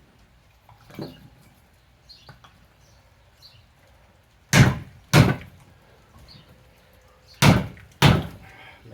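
Heavy, sharp blows striking hardwood as it is cut into chunks: a few light knocks, then two pairs of loud strikes about half a second apart, the first pair a little past halfway and the second near the end.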